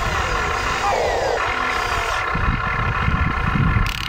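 Electric motors and gearing of a Huina RC excavator whining steadily as it swings its upper body and moves its arm, with the pitch dipping briefly in the first couple of seconds.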